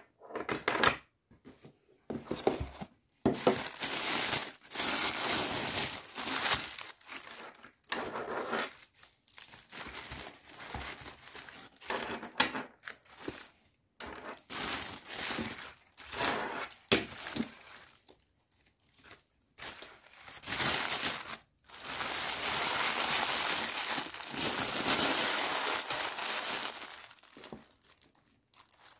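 White tissue paper crinkling and rustling in irregular bursts as it is handled and folded over beaded jewellery in a box, with a longer stretch of rustling near the end.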